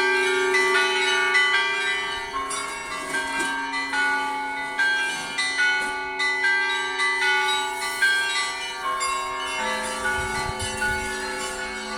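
Russian Orthodox church bells rung in a peal (zvon): small bells strike in a quick, even rhythm over the ringing of larger bells, and a deeper bell comes in near the end.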